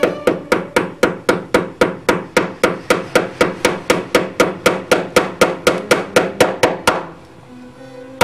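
Small hammer driving a nail, quick even blows about four a second, stopping near the end.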